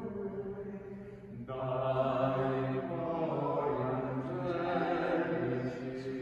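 Liturgical chant: a low voice sings long, held notes. The sound grows louder and fuller about a second and a half in.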